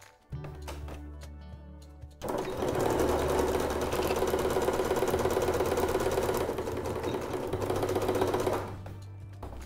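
Electric sewing machine stitching at a steady speed, its needle going up and down rapidly, starting about two seconds in and stopping near the end. It is sewing a close edge seam to shut the turning opening of a small fabric lining.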